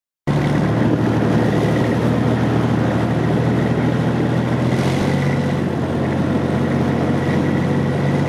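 Engine of an armoured military vehicle running steadily under way, heard from on top of its hull; the engine note shifts slightly about five seconds in.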